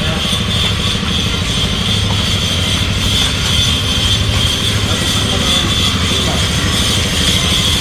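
Engine of a moving vehicle running steadily, with a constant high-pitched hum above it.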